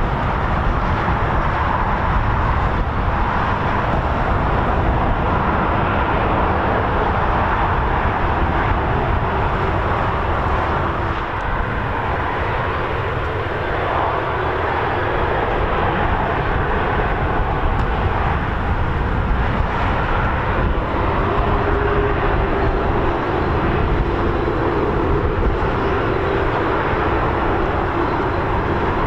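Boeing RC-135W Rivet Joint's four CFM F108 turbofan engines running at taxi power as the jet taxis: a steady jet noise with a deep rumble underneath.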